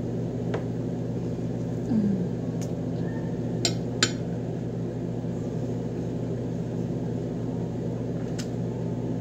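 Steady low mechanical hum in the room, with a few sharp clinks of a metal fork against a dish while eating, two of them in quick succession about four seconds in.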